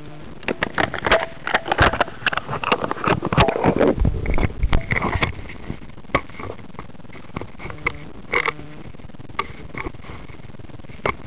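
Handling noise from a camera being carried and set down on a wooden floor: a busy run of knocks, rubs and rustles for the first few seconds, then scattered single clicks and taps.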